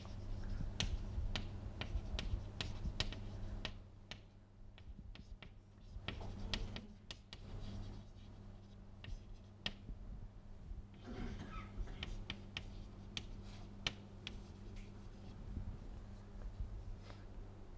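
Chalk writing on a blackboard: a series of sharp taps and clicks as the chalk strikes and scrapes the board, over a steady low electrical hum.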